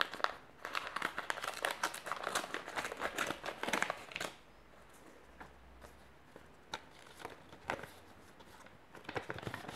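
Small brown paper envelope being torn open and handled, with dense crinkling and tearing for about four seconds, then a few separate rustles and more crinkling near the end.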